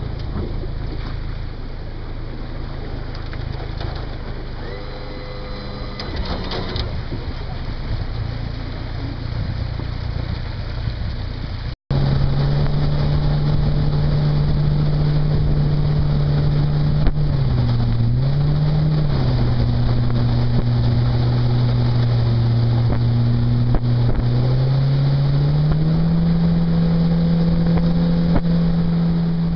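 Mercury 60/40 outboard jet motor running as the jet boat cruises, with rushing water and wind. About 12 s in, the sound breaks off sharply and comes back as a clear engine note. That note drops twice as the throttle eases, then rises and holds higher near the end.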